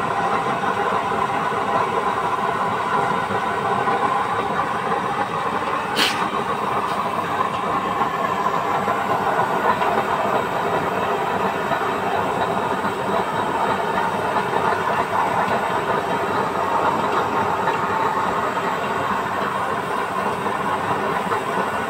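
Homemade waste-oil stove burning under a pot: a steady rushing hiss from the burner, with one sharp click about six seconds in.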